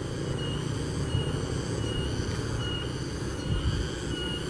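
A steady low rumbling noise in the open air, with a short high-pitched chirp repeating several times across it.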